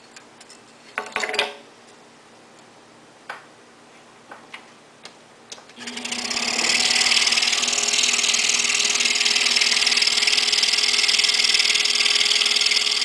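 A few short handling knocks, a cluster of them about a second in. About six seconds in, an Excalibur scroll saw starts up and runs steadily with a low hum and a strong hiss as its blade cuts through a thin wooden fretwork piece.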